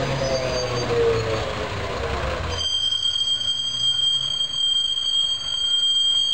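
Škoda 15Tr articulated trolleybus passing and pulling away: a motor whine falling in pitch with low running rumble. About two and a half seconds in, the rumble drops away and a steady high-pitched whistle takes over.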